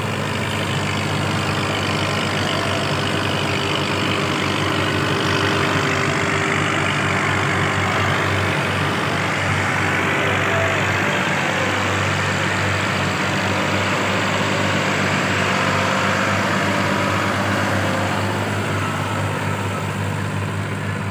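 New Holland Dabung 85 tractor's diesel engine running steadily under load as it drags a laser land leveller across loose soil, with a steady rushing noise above the engine note.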